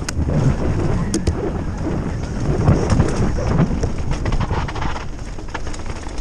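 Downhill mountain bike ridden fast over a bumpy dirt trail: tyres rolling on dirt with the chain and bike rattling and clicking over the bumps, under a steady rumble of wind on the camera's microphone.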